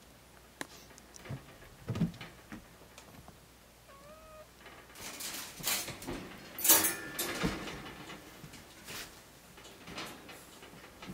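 A domestic cat gives one short, fairly quiet meow about 4 seconds in. Around it are clicks, knocks and rustling from a wire pet cage being handled, with the loudest rustle just past the middle.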